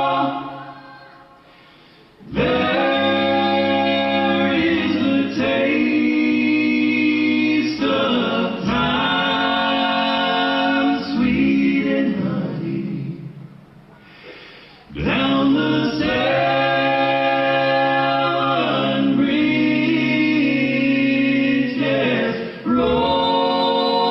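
Male a cappella group singing close harmony: long, held chords in phrases, with two short breaks between them (one near the start and one about halfway), and no beatboxing under the voices.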